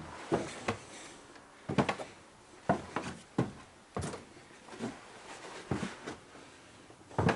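Footsteps on wooden stairs and attic floorboards: a string of dull knocks at an uneven pace, about one a second.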